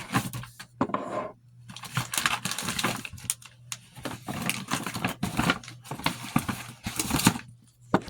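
Small objects being picked up, moved and set down, with rustling and rapid light clattering knocks.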